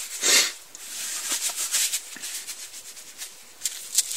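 Leather golf glove rustling and rubbing as a hand is worked into it, with a short, sharper rustle about a third of a second in and a few light scratchy brushes near the end.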